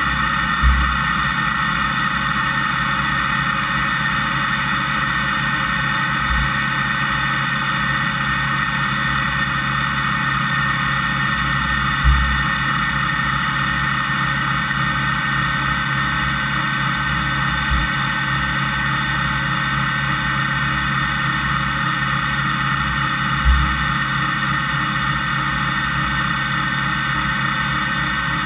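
Fadal VMC5020A CNC machining center running with no cut being taken, a steady mechanical hum with several held whining tones. A dull low thump comes about every six seconds, five times in all.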